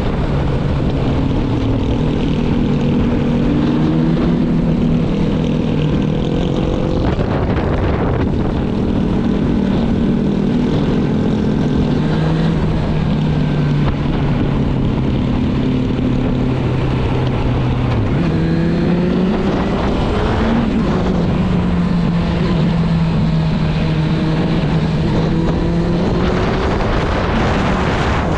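Suzuki GSF 650 Bandit's inline-four engine running through an Akrapovic exhaust while riding. The engine note holds steady for long stretches, drops about two-thirds of the way through, then climbs again.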